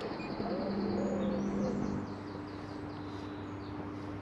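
Birdsong from the riverbank: quick repeated high chirps and trills. Under it, a low wavering hum in the first two seconds gives way to a steady low drone.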